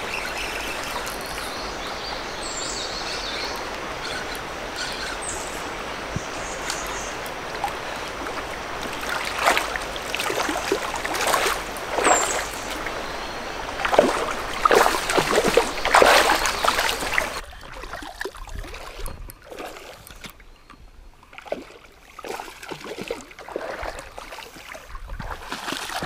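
Creek water running steadily, then a run of splashing as a person wades waist-deep through it. The sound drops suddenly in level about two-thirds of the way in, with smaller splashes in the water near the end.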